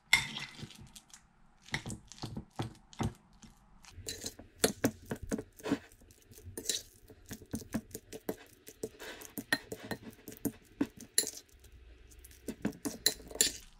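Metal fork mashing ripe avocado in a glass bowl: irregular clinks and taps of the fork against the glass. They come faster and closer together after about four seconds.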